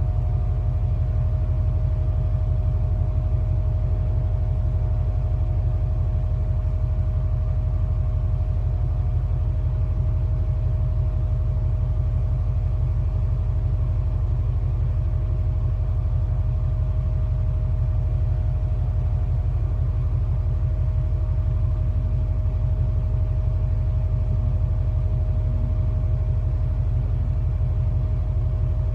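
Cargo ship's engine humming: a steady low drone with a thin, even tone above it, unchanging throughout.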